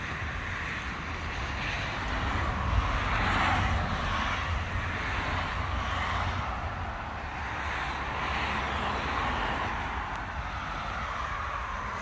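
Road traffic: cars passing one after another, each a swelling and fading tyre-and-engine rush over a steady low rumble.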